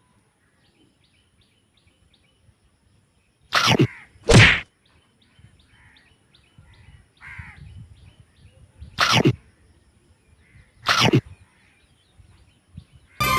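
Four short, loud whoosh sound effects, two of them about a second apart and two more later, laid over faint repeated bird chirping.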